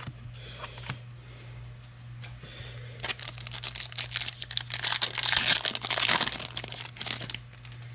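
A foil trading-card pack wrapper being handled, torn open and crinkled, with light scattered clicks at first and a dense crinkle from a few seconds in until shortly before the end.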